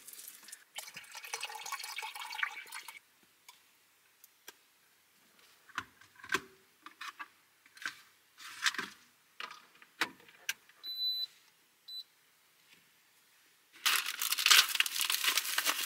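Water poured into an electric kettle, then scattered small clicks and knocks as it is handled, two short electronic beeps about three-quarters of the way in, and near the end a loud crinkling rustle as a cup noodle's lid and packaging are opened.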